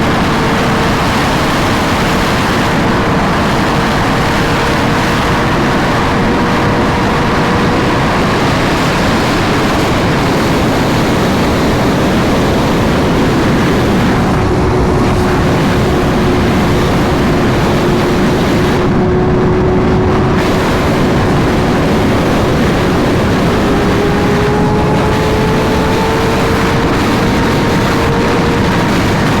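Sport bike riding at highway speed: heavy wind rush on the microphone with a steady engine tone underneath. The engine note eases lower about a third of the way in and climbs again near the end as the bike speeds up.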